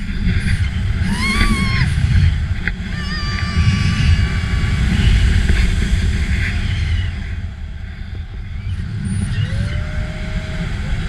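Airflow buffeting the camera microphone during a tandem paraglider flight: a loud, steady low rumble. A short high squeal rises and falls over it about a second in.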